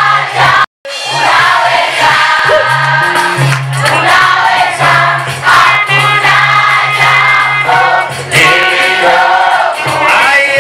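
A choir singing gospel praise music over a steady low bass line. The sound cuts out completely for a moment just before a second in.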